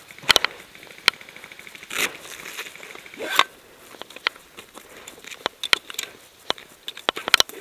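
Dry grass, twigs and brush crackling and rustling as someone pushes through them on foot, with many sharp snaps and clicks. A quick run of clicks comes near the end.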